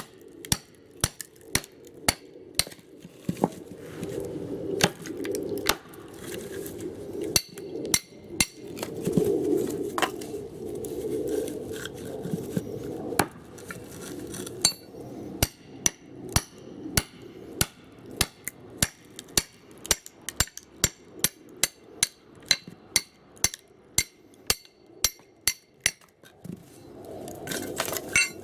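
A steady series of sharp chopping knocks, about two a second, on and off, with a low rumbling noise under them in places.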